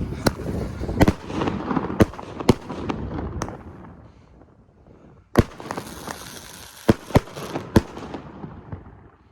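Small nine-shot consumer fireworks cake firing: a string of sharp bangs at uneven spacing, about nine in all, with a lull in the middle before the last few.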